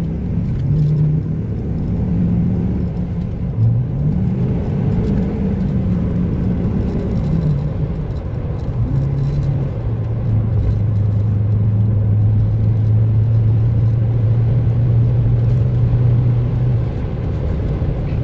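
Ford F-350's gasoline V8 and road noise heard from inside the cab while driving. The engine note rises and shifts as the truck accelerates, then holds steady at cruise from about halfway through. The throttle is responding normally again, the shorted accelerator-pedal sensor wire having been repaired.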